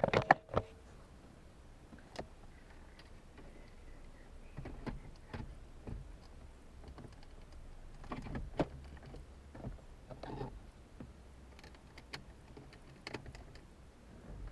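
Scattered light clicks and knocks as a car stereo is handled and fitted back into the dashboard, over a faint low hum.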